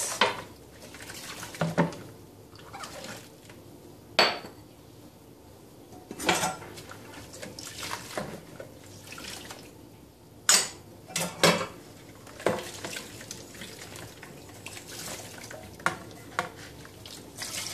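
Metal kitchen pieces being washed by hand in a plastic bowl of soapy water: soft sloshing and scrubbing, broken by scattered sharp clinks as metal knocks against metal.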